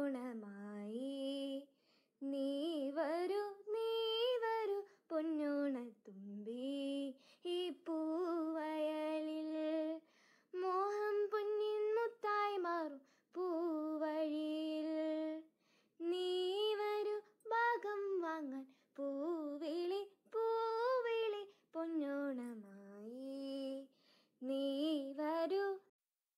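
A girl singing a slow, melodic song solo and unaccompanied, in phrases of one to three seconds with short silent breaks between them.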